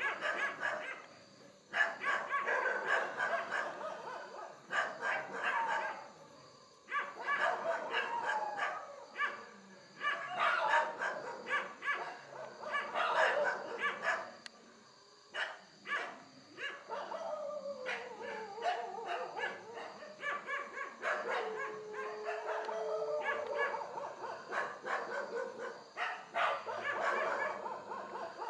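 Dogs barking and yelping in repeated bouts, with drawn-out howls about two-thirds of the way through.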